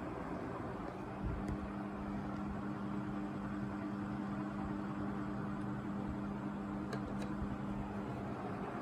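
National F-560A1 56-inch industrial ceiling fan running: a steady, even motor hum over the rush of air from the blades.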